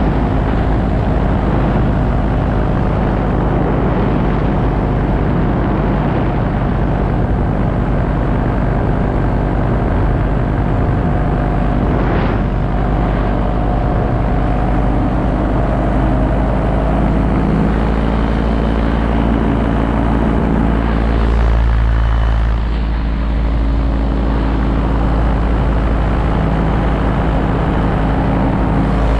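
Paramotor engine and propeller running steadily in cruise flight, heard close up from the pilot's harness, with a deep wind rumble on the microphone. The engine note changes briefly a little over twenty seconds in.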